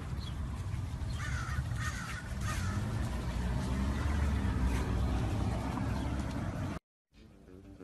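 A steady low rumble with three short calls about one to three seconds in; the sound cuts out briefly near the end.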